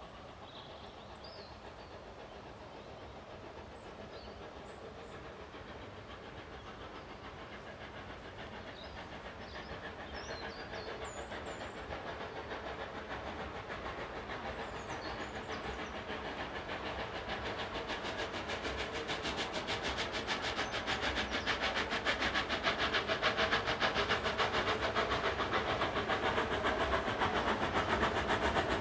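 Industrial steam tank engine working hard up a steep gradient as it approaches, its exhaust beats growing steadily louder and becoming a fast, distinct chuffing rhythm in the last third. Birds chirp faintly early on.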